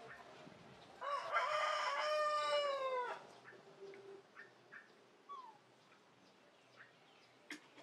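A rooster crows once, a single call about two seconds long that drops in pitch at its end. Faint short chirps repeat around it, and there is a sharp click near the end.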